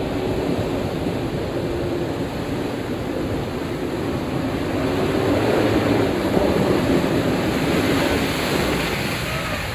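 A 4x4 pickup truck driving through thick mud, its engine working under load under a steady rushing noise of tyres, mud and wind. It gets louder about halfway through as the truck comes closer.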